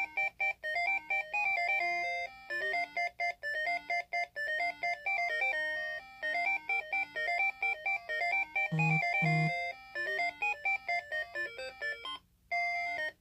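Pokémon cuckoo clock playing one of its electronic melodies: a quick tune of short, bright, beeping chime notes, pausing briefly about twelve seconds in before the notes start again.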